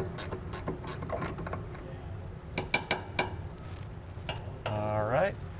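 Ratcheting wrench clicking as it backs a corroded nut off the jounce bumper stud: quick sharp clicks through the first second and another short run about three seconds in.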